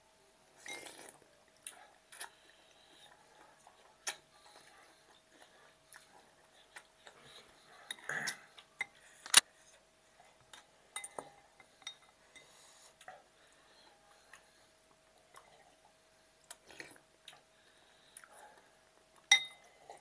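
Forks, spoons and chopsticks clinking and tapping against glass bowls and a plate during a meal of noodle soup: scattered sharp clinks, the loudest about nine seconds in.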